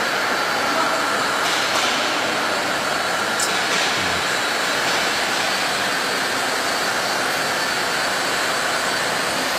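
Steady machinery noise, an even rushing hiss with faint steady tones above it and no distinct strokes or impacts.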